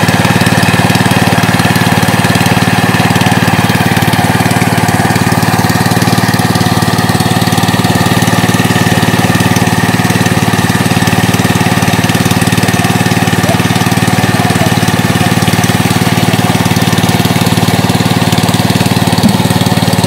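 Small engine-driven water pump running steadily at constant speed, drawing water up out of the pond.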